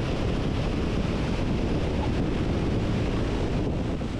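Wind rushing over a wing-mounted camera's microphone as a Piper Tomahawk rolls along the runway, a steady noisy rush with engine and airframe rumble underneath. It begins to fade right at the end.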